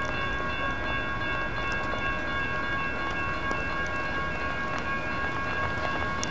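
Electronic railroad crossing bells (GS E-Bells) ringing without a break, a steady chord of several overlapping tones. Under the bells is the low rumble of a passing light rail train.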